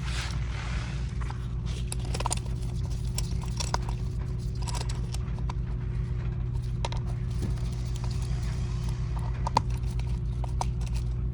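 Scattered clicks and taps of tools and metal parts as a tail light bracket is screwed onto the bike, one knock sharper than the rest near the end, over a steady low electrical hum.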